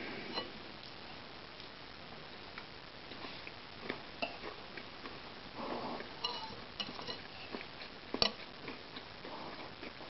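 A spoon clicking and scraping against a ceramic bowl of food while eating: irregular sharp clicks, the loudest about eight seconds in.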